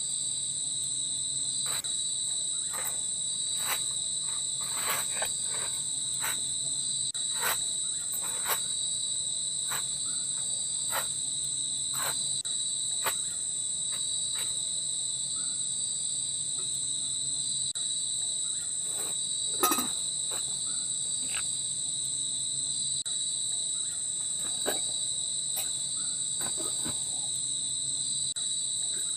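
Steady high-pitched insect chorus with no breaks, with scattered short sharp clicks and a somewhat louder knock just before twenty seconds in.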